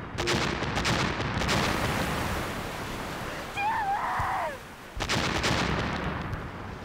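Gunfire and explosions, with fresh blasts just after the start and again about five seconds in, over a steady rumble of battle. A short wavering cry rises and falls about three and a half seconds in.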